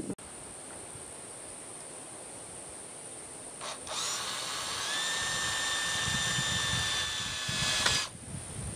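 Cordless drill driving a screw through a 1x4 board into a wooden 4x4 post. After a short blip about three and a half seconds in, the motor whine rises in pitch, holds steady for about four seconds, then stops abruptly.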